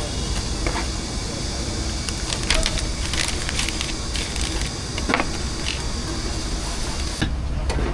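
Busy street-food stall background: a steady low rumble and hiss with scattered clicks and clatter, thickest a few seconds in, and the background changing abruptly near the end.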